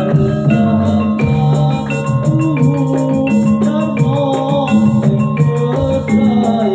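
Live jaranan music: a Javanese gamelan-style ensemble of struck metal keyed instruments and drums playing steadily, with a voice singing a wavering melody over it.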